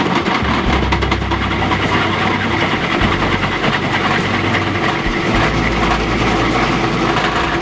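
Drill press running steadily as it drills through a steel plate, enlarging a 3/8-inch hole to 1/2 inch.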